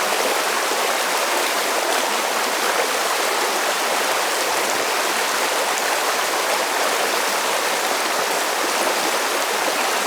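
Flowing river water rushing steadily with an even, unbroken hiss.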